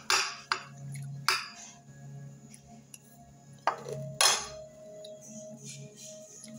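A metal fork clinking against a glass dinner plate: about five sharp, irregular clinks, the last a little past four seconds in.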